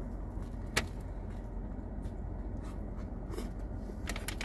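Car air conditioning running with a steady low hum, under a bite and chewing of a toasted sub sandwich: a sharp click about a second in and a few more near the end.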